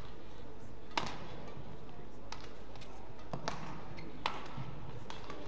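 Badminton rally in women's singles: rackets strike the shuttlecock with sharp, short cracks, about four hits at uneven spacing over a low, steady arena background.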